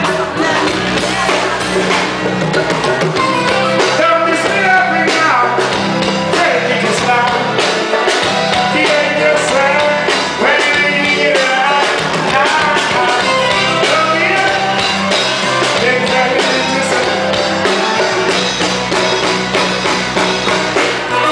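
Live reggae band playing a bass-heavy groove with a steady drum beat while a male vocalist sings into a microphone over it.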